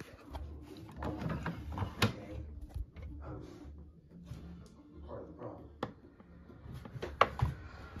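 Plastic detergent dispenser drawer of an LG front-load washer being pulled open and handled, giving a few sharp clicks and knocks, over faint background music.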